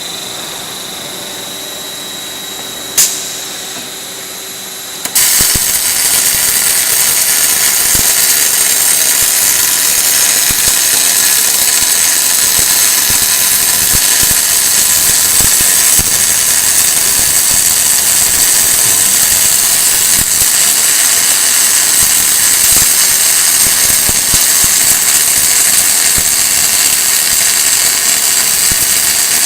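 Steady machine hum with a high whine and one click, then about five seconds in the welding arc of a linear welding machine strikes and runs as a loud, steady crackling hiss.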